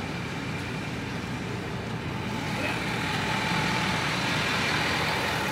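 A pickup truck's engine idling steadily, a little louder in the second half.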